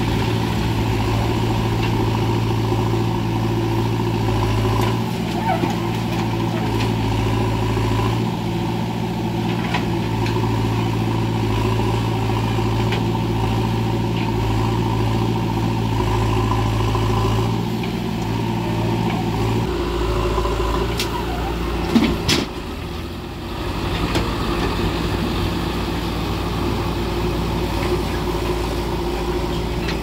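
Diesel engines of a JCB 3DX backhoe loader and a farm tractor running steadily, the engine note shifting in steps as the backhoe digs and loads soil into the trailer. Two sharp knocks about 22 seconds in.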